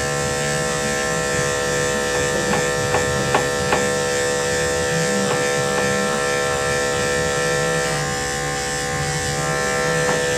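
Electric pet clippers running with a steady hum as they shave a cat's fur, with a few brief clicks about three seconds in.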